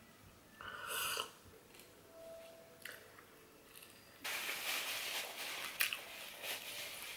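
Close-miked eating sounds: a short slurp from a paper drinking cup about a second in, then dense mouth and chewing noise with small clicks from about four seconds in.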